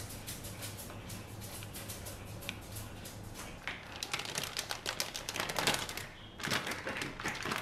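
Plastic piping bag crackling and rustling while it is handled and filled with the mascarpone cheese mixture: rapid small crackles and ticks that grow busier and louder about halfway through.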